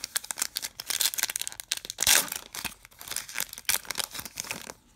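Foil wrapper of a Topps Star Wars trading card pack being crinkled and torn open by hand: a dense run of sharp crackles, loudest about two seconds in, stopping near the end.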